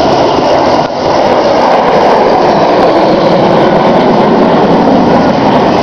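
F-111's twin afterburning turbofan jet engines running, a loud, steady, dense roar that rushes and hisses, with a brief dip a little under a second in.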